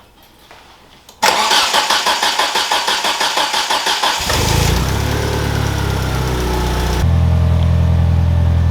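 1991 Eagle Talon's turbocharged 4G63T four-cylinder cranking on the starter in rhythmic pulses for about three seconds, starting about a second in, then catching and running, and settling to a steady idle near the end. It is a cold start, with the newly fitted fuel pump rebuilding pressure in the fuel lines.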